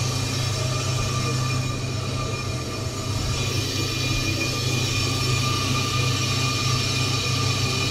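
Ammco 4000 brake lathe running steadily as it skims a brake rotor: a constant motor hum with a few steady high-pitched tones over it.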